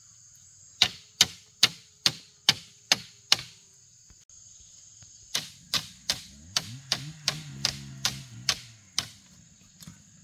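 Machete blade chopping down on split bamboo strips in quick sharp strokes: seven strokes, a short pause, then about eleven more, a little faster. Insects shrill steadily in the background.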